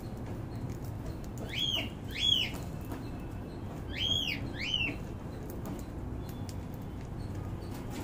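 Cockatiel calling four times, short arched whistles that rise and fall in pitch, in two pairs about two seconds apart, over a steady low background noise.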